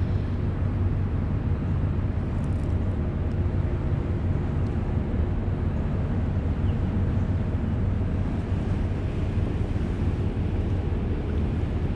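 Electric trolling motor running at a steady speed: a constant low hum with a faint wash of noise over it.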